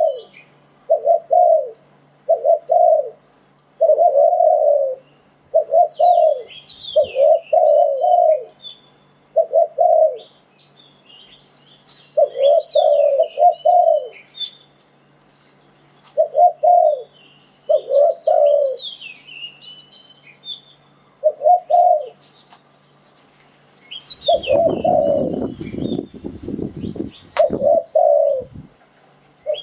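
Spotted dove cooing over and over in short low phrases, one every second or two, with small birds chirping thinly above it. About three-quarters of the way through, a rough rustling noise lasts a few seconds, followed by a sharp click.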